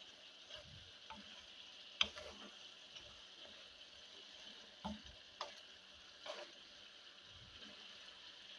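Sliced chicken breast sizzling faintly in a nonstick frying pan while a wooden spatula stirs it, with about four sharp knocks of the wood against the pan, the loudest about two seconds in.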